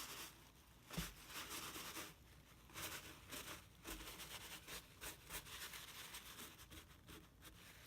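Faint, irregular scratchy rustling of thin tissue napkin paper being handled and worked onto a wet painting, a few short strokes a second.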